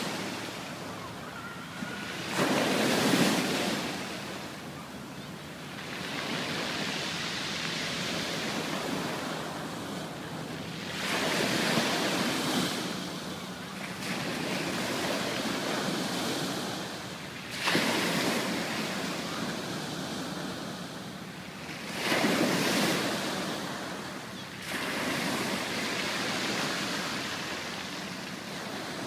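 Ocean waves breaking on a beach: a steady hiss of washing water that swells into a louder surge as each wave breaks, about every five or six seconds.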